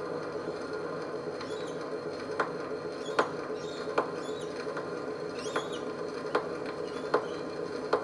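Edison Diamond Disc turning under a C-3 phonograph's long-play reproducer in the silent groove past the end of the recording: steady surface hiss with a sharp click about every three-quarters of a second, once per turn of the disc.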